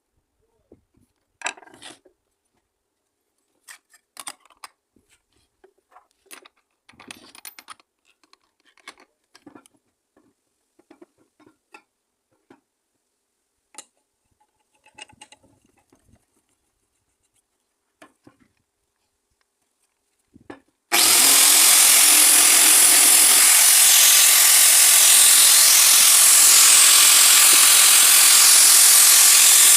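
Scattered light knocks and clinks of tools and metal being handled, then about two-thirds of the way through an electric angle grinder cuts in suddenly and runs loud and steady on metal, with a faint steady whine under the hiss.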